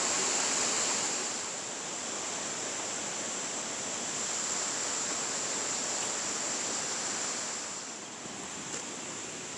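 Shiraito Falls, a wide, low curtain of many thin streams pouring over a rock face, splashing with a steady rushing hiss that dips a little in level about a second and a half in and again near the end.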